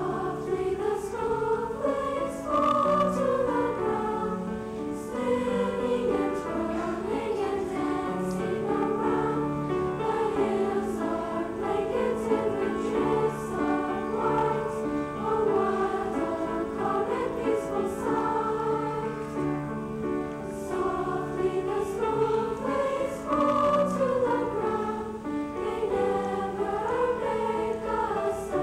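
Junior high school choir singing with piano accompaniment, the melody rising and falling over steady held chords.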